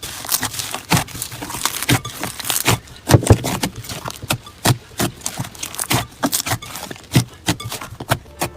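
Slime being squeezed and worked by hand, giving a dense run of sharp, irregular pops and clicks, several a second.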